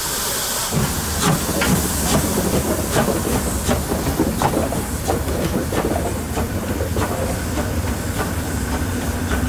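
DR class 52 2-10-0 steam locomotive setting off light engine, its open cylinder drain cocks hissing steam. About a second in, a low rumble of the moving engine starts, with irregular knocks and clanks from the running gear and wheels.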